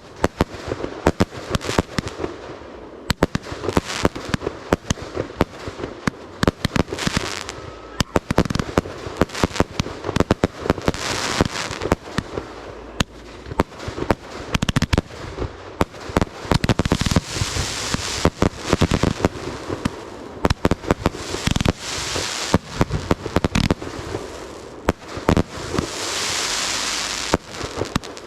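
Fireworks going off in a rapid, dense string of sharp pops and bangs, with several stretches of hissing, crackling fizz.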